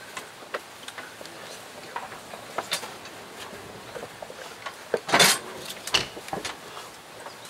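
Scattered clicks and knocks of a wooden casket being handled and set onto a metal graveside lowering-device frame, with a louder sliding scrape lasting about half a second about five seconds in, then a few more knocks.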